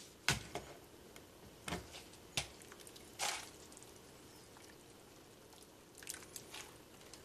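A ladle knocking a few times against a crock pot while soup is stirred and ladled out, with a short splash of soup poured into a bowl a little after three seconds in.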